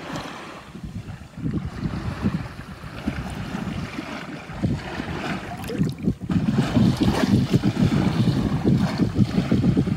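Wind buffeting the microphone in an uneven, gusty rumble, over small waves washing at the water's edge. The buffeting grows louder about six seconds in.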